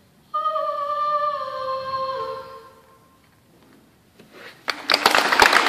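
A girl's voice holds one long high sung note, its pitch dipping slightly near the end. About a second before the end, the audience starts clapping.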